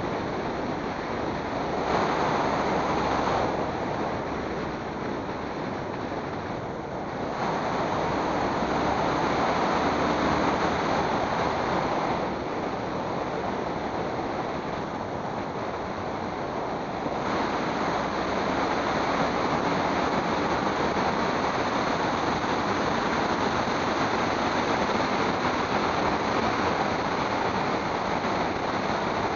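Steady rushing wind noise on the microphone of a camera moving along a road. It grows louder about two seconds in, again about eight seconds in, and from about seventeen seconds on.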